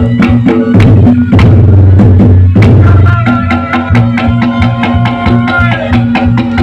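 Reyog Ponorogo gamelan accompaniment played live: quick, busy drum and gong-chime strikes over steady low gong tones, with a reedy slompret melody coming in about three seconds in.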